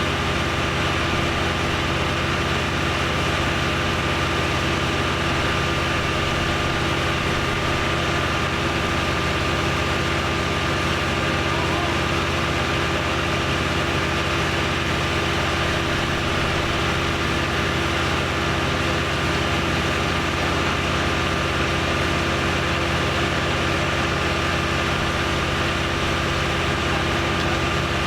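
An engine idling steadily, its pitch and level unchanging, with a thin steady high tone over it.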